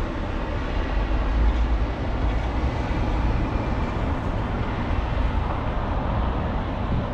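Steady low rumble of road traffic with a hiss over it, building over the first second or two and then holding.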